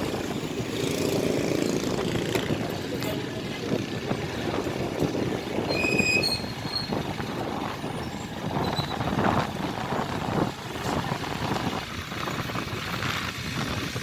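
Motor vehicle running along a road, engine and road noise, with a short high tone about six seconds in.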